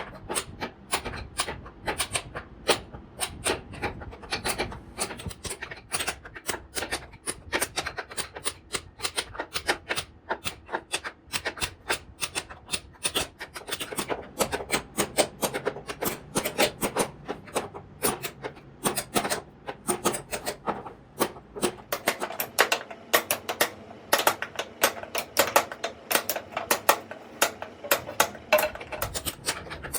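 Hand tools carving wood: a fast, irregular run of sharp taps and scrapes, several a second.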